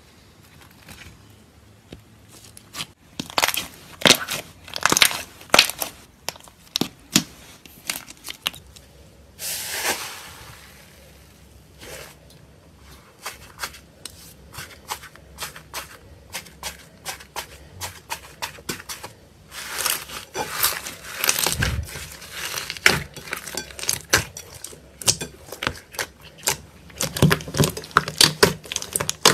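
Hands squishing, stretching and kneading slime, giving bouts of rapid clicks, pops and crackles with quieter gaps between them. A brief hiss comes about ten seconds in.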